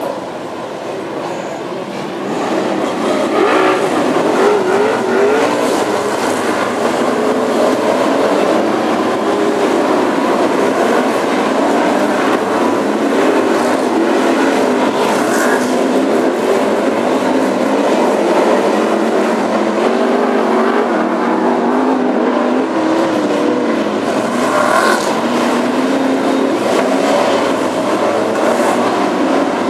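A pack of BriSCA F1 stock cars' V8 engines racing, many engines revving up and down over each other. The sound gets louder about two and a half seconds in as the pack gets going.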